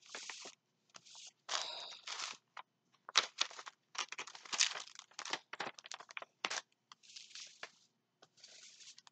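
Crinkling and rustling of a diamond painting canvas and its plastic cover being handled, in a run of short bursts with small clicks and brief pauses between them.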